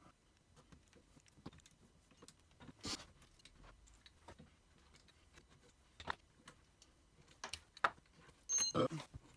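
Scattered light clicks and metal clinks as chuck jaws and their screws are handled and swapped on a Nova G3 lathe chuck. A sharper clink rings briefly near the end.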